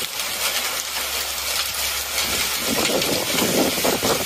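Rain and hail pelting down in a storm: a loud, dense hiss full of sharp ticks from the hits. A deeper rushing sound of the storm swells in about two-thirds of the way through.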